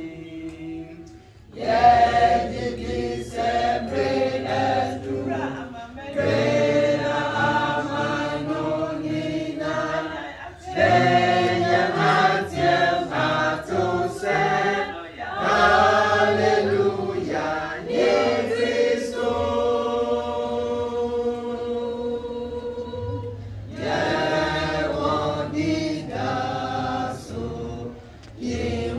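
A group of voices singing a gospel song together in phrases of a few seconds each, with short breaks between them.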